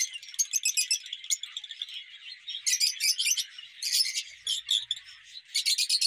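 A flock of lovebirds and budgies chirping and chattering: clusters of sharp, high chirps come and go over a steady background twitter.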